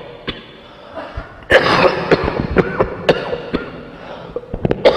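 Congregation moving between prayer positions: scattered small knocks and rustles, with a cough about a second and a half in.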